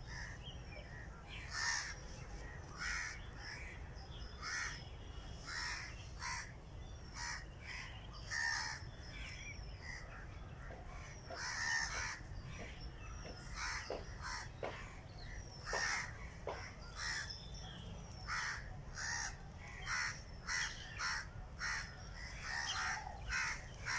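Birds calling over and over, short calls following each other about once a second.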